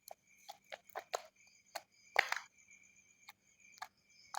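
Slime being squished and poked by hand, giving a string of short, irregular wet clicks and pops. A faint steady high whine sits underneath.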